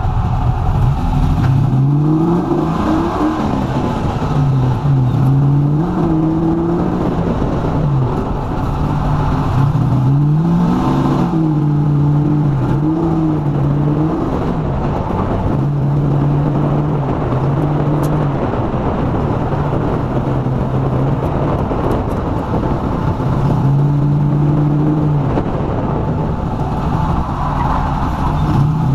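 LS-swapped 1952 Ford F1 pickup's V8 engine driven hard through an autocross course: the engine note repeatedly revs up and falls back as the throttle is worked between the cones, over steady tire and wind noise.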